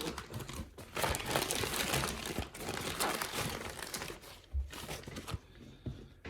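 Packaging crinkling and rustling as a parcel is unwrapped by hand, busiest through the first few seconds, then quieter handling with a few light knocks near the end.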